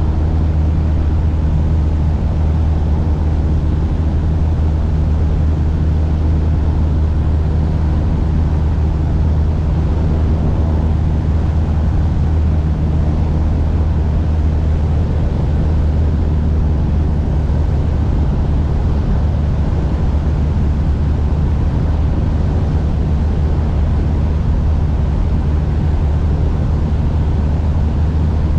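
Single-engine Cessna's piston engine and propeller droning steadily in flight, a constant low hum with no change in pitch or level.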